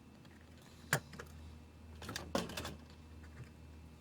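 Sharp clicks and light clattering of small tools being handled at a workbench: one distinct click about a second in, then a short cluster of clicks and rattles about halfway through.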